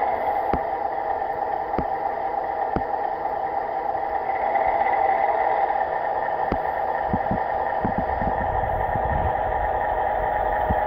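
Märklin HO-scale PA-1 model diesel locomotive running with a train of freight cars: a steady whirring hum of its motor and gears, with light clicks as wheels cross rail joints, roughly one a second and a few closer together near the end.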